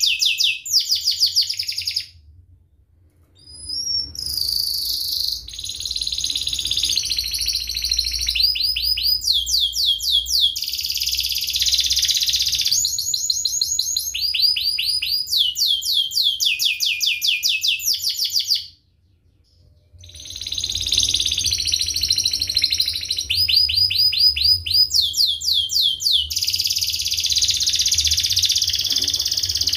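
Domestic canary singing in a loud, fast song of tight rolling trills. Each trill is a rapid run of repeated sweeping notes, and the bird switches to a new trill every second or two. The song breaks off briefly about two seconds in and again a little before twenty seconds.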